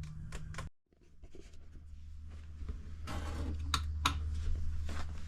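Wire cutters snipping the leads of an old hardwired RV carbon monoxide detector: two sharp snaps about half a second apart near the middle, amid small handling clicks and scratches. A steady low hum runs underneath, and the sound drops out briefly just under a second in.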